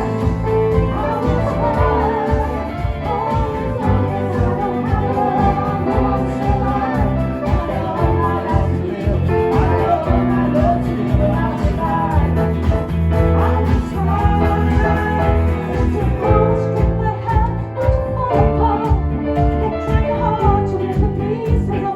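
Live band playing a song with singing over a steady beat.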